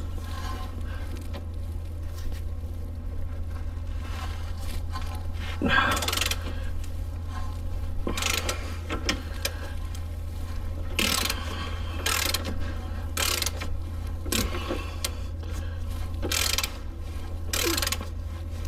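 Ratcheting wrench turning a stubborn 15 mm bolt: short bursts of ratchet clicking every second or two, over a steady low hum.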